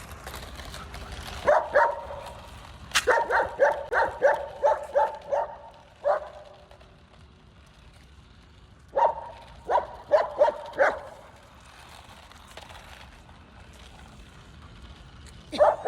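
Puppy barking in short, high yips: a single yip, then a fast run of about eight, then two more bursts a few seconds apart.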